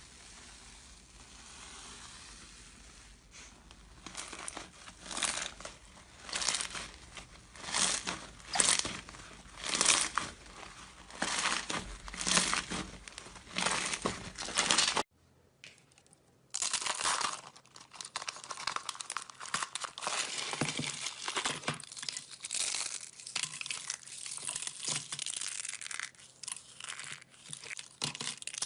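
Slime being worked by hand, crackling and crinkling. First comes a run of regular presses about one a second. After a short break near the middle, a denser, continuous crackle follows.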